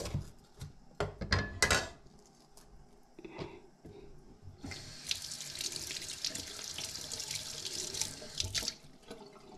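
A few sharp knocks of a kitchen knife on a cutting board, then, about halfway through, a kitchen tap turned on and running steadily as a red chili pepper is rinsed under it in the sink.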